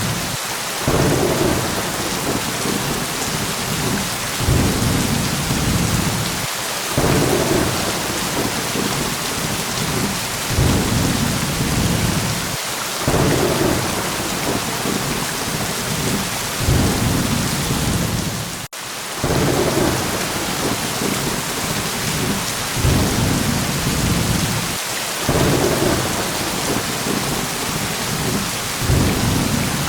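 Steady heavy rain hissing, with low rolling thunder rumbles swelling and fading every two to four seconds. About two-thirds of the way through, the sound cuts out for an instant.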